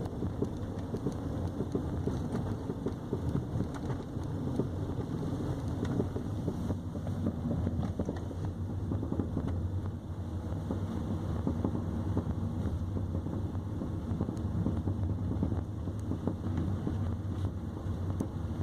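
2015 Nissan Sentra driving, with a steady low road and tyre rumble and many short knocks and rattles throughout. The owner describes these as metallic noise and knocks from the front right suspension.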